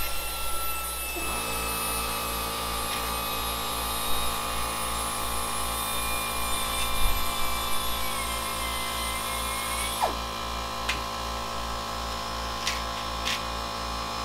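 Power drill running with a steady high whine, drilling #40 pilot holes through a metal hole-pattern transfer strip into an aircraft tailplane spar. Its pitch sags a little partway through, and a few light clicks come near the end.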